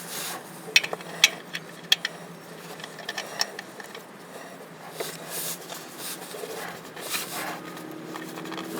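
Scattered light clicks, taps and scrapes of small parts and tools being handled by hand, with a few sharper clicks in the first two seconds.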